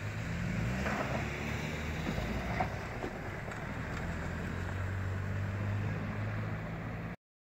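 Cars driving one after another over a snow-covered road level crossing, with engines humming and tyre noise on the snowy road. The sound cuts off abruptly near the end.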